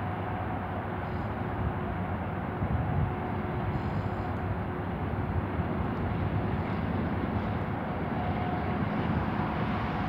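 Steady low rumble of a long double-stack container freight train rolling past at a distance, with a faint steady whine over it.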